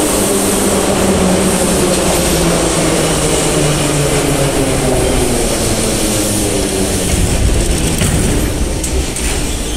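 Moscow metro 81-717.5 train pulling into the station and braking to a stop. Motor and wheel noise runs with a slowly falling hum and eases off near the end as the train halts.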